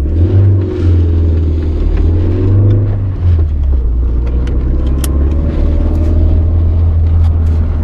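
Toyota AE86 Trueno's 4A-GE four-cylinder engine running as the car drives, heard from inside the cabin as a steady low drone with road rumble. Its pitch climbs a little, then drops about three seconds in and carries on steady.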